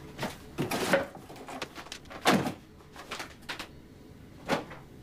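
Things being handled and moved about in a cardboard box: a series of separate knocks, scrapes and rustles, the loudest a little after two seconds in.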